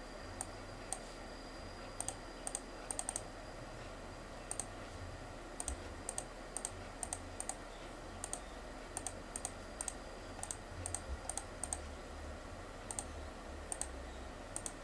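Computer mouse button clicking at an irregular pace, a few clicks a second, often in quick press-and-release pairs, as Arabic letters are picked one by one on an on-screen keyboard. A faint steady hum runs underneath.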